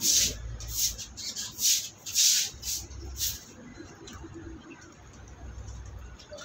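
A brush scrubbing a wet, soapy floor in short strokes, about two a second, which stop a little over three seconds in.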